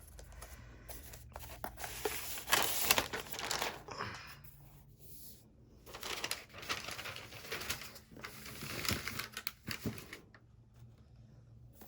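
Protective wrap being pulled off a new laptop, crinkling and rustling in several spells with small clicks and taps of handling; the loudest spell is a few seconds in.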